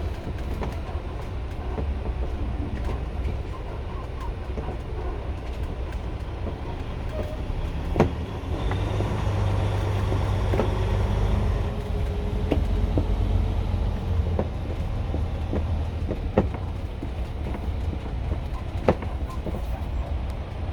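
A 2022 Renegade XL under way with a steady low rumble, broken by sharp, irregular knocks a second or a few seconds apart, the loudest about eight seconds in and near the end. These knocks are the knocking noise the owner is recording.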